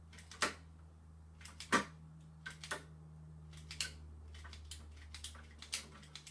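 Irregular sharp clicks and snaps of wire strippers working at a thick alarm siren cable, over a steady low hum.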